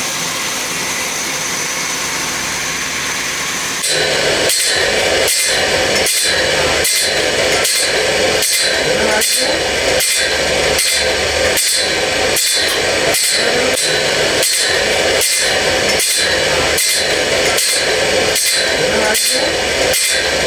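Sawmill machinery running. At first it is a steady whine, then about four seconds in it changes abruptly to a louder, evenly repeating stroke, a little under two strokes a second.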